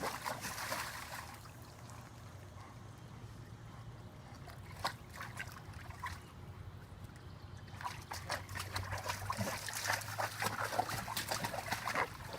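Dog moving about in a shallow foldable PVC pet pool, water trickling and splashing, with a few light splashes in the middle and busier splashing over the last few seconds.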